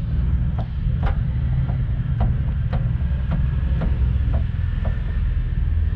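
Light clicks or knocks about twice a second as a 1994 VW Kombi's CV joint (homocinética) is worked back and forth by hand, over a steady low rumble. The owner suspects this loose play is behind the van's clanking, like 'lata batendo na lata', over bumps.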